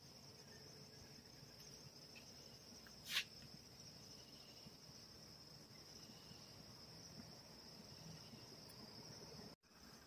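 Faint crickets chirring in a steady, continuous high trill. About three seconds in there is one brief, sharp noise, the loudest thing here, and just before the end the sound cuts out for a moment.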